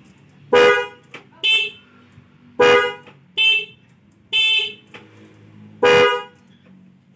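Motorcycle horn set, a snail horn and a disc horn wired through a relay so they can alternate, blown in six short honks at uneven intervals. Some honks carry a stronger deep tone than others.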